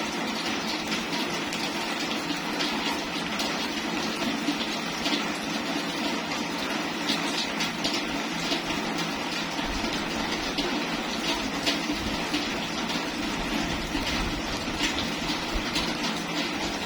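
Steady rain falling, a dense even hiss with many small drop ticks running through it.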